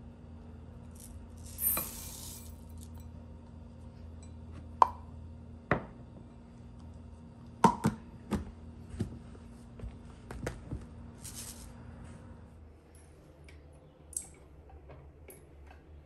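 Dry rice poured from a plastic measuring cup into a ceramic bowl with a brief rattling rush, then a series of sharp plastic clicks and knocks as the cup is handled and fitted back onto the plastic rice dispenser. A faint low hum runs underneath.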